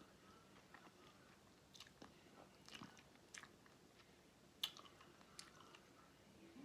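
Faint close-up eating sounds: wet chewing and lip smacks of seafood boil food, with a handful of short sharp mouth clicks, the loudest about four and a half seconds in.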